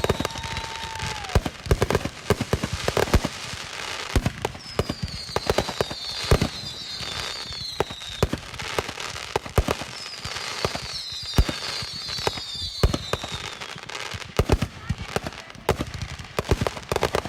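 Fireworks display going off: a rapid stream of bangs and crackles, with two bursts of several overlapping whistles that fall in pitch, one about five seconds in and one about ten seconds in.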